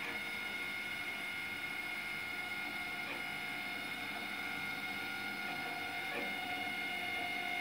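Stepper motors of a homemade Raspberry Pi pen plotter driving the pen carriage in one long steady move, a constant high whine at a fixed pitch.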